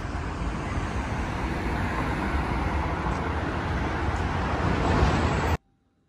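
Loud, steady din of a crowded underground metro station: a low rumble under the noise of many people on the move. It cuts off abruptly about five and a half seconds in.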